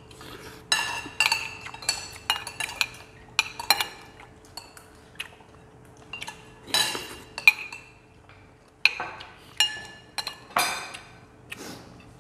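Metal spoons and forks clinking and scraping against ceramic plates and bowls during a meal, in irregular sharp clinks with short rings.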